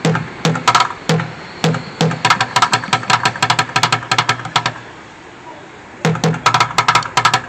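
Bucket drumming: drumsticks beating a quick rhythm of sharp strikes on buckets, breaking off for about a second a little past halfway before the beat starts up again.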